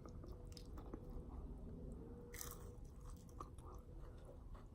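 Quiet, close-up chewing and crunching of spicy chicken nachos, with one louder crunch about halfway through.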